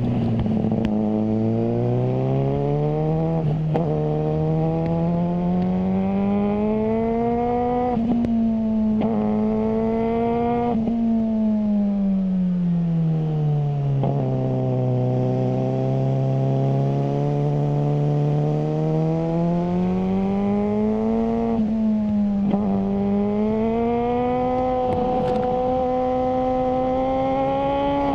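Suzuki GSR600 inline-four engine through a GPR Ghost aftermarket exhaust, its note rising and falling in long sweeps as the revs climb and drop, with short breaks in the note every few seconds.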